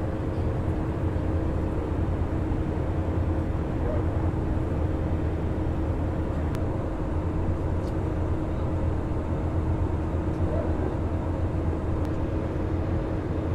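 Airbus A320 cabin noise in flight: a steady roar of engine and airflow, with a constant humming tone held over it.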